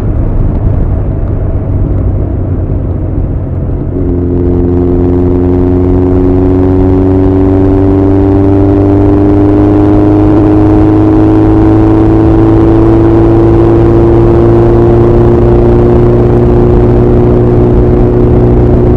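Honda CB1100's air-cooled inline-four running through an Arrow full exhaust system while riding. The engine pulls steadily and eases off briefly. At about four seconds it shifts up, drops in pitch, then slowly climbs in pitch as the bike gathers speed.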